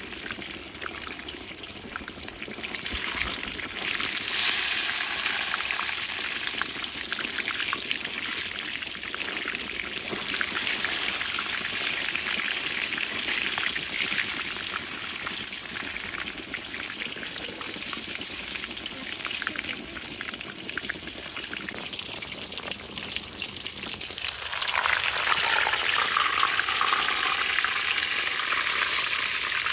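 Hot oil deep-frying a thick slice of watermelon in a cast-iron cauldron: a continuous crackling sizzle. It gets louder and harsher about 25 seconds in.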